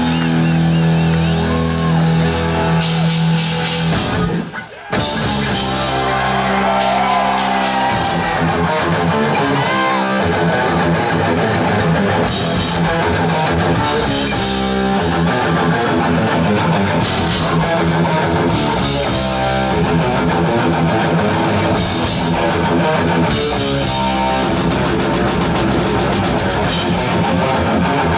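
Heavy metal band playing live: distorted electric guitars, bass and drum kit. A held chord cuts out briefly about four seconds in, then a driving riff with repeated cymbal crashes.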